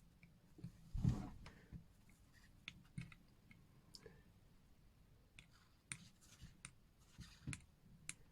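Scattered small clicks and taps from handling watch parts and tools on a workbench, with a louder knock about a second in.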